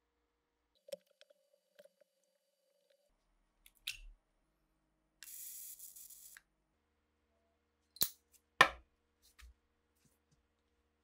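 Electric arc lighter buzzing with a high hiss for a little over a second, between small clicks and taps of handling. Near the end come two sharp clicks about half a second apart, the second the loudest sound.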